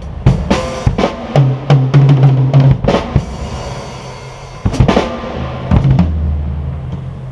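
Drum kit being played: quick hits, then a fill on the low toms that ring out. Cymbal crashes come about three seconds in and again near five seconds, and a last low drum hit rings and fades away near the end.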